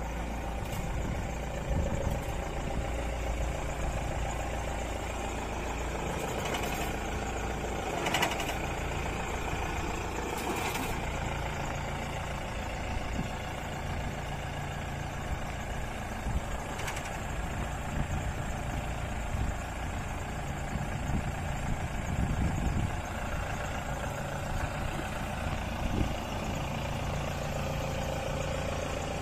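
Engine of a tracked paddy combine harvester running steadily at low speed as the machine crawls down steel loading ramps, with a few sharp knocks.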